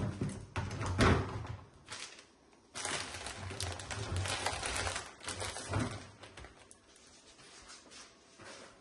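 Plastic food packets and cellophane crinkling as they are handled, with light knocks as packets are set down on a metal tray. The knocks come near the start and again about one and two seconds in, and the crinkling runs for a couple of seconds in the middle.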